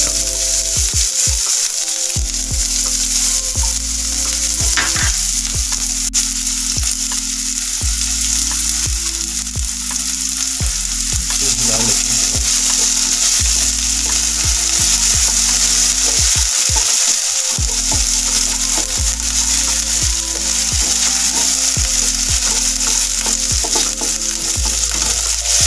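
Diced potato, onion and green chilli sizzling steadily in hot oil in a frying pan, with the scrape of a spatula stirring them around.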